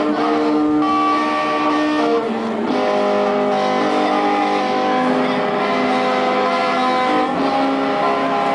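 Instrumental song intro led by an electric guitar, held chords changing every two to three seconds.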